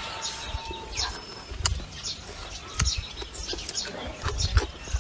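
Small birds chirping over and over in short, high, falling notes, with scattered low thumps and clicks close by.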